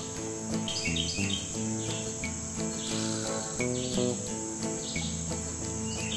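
Instrumental background music: a melody of held notes that step from pitch to pitch over a steady ticking beat, with quick runs of short high notes.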